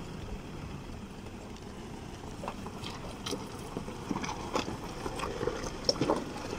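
Toyota Hilux pickup crawling over loose river boulders: a low engine rumble with its tyres crunching and knocking on the stones. The knocks start a few seconds in and grow louder and more frequent as it comes close.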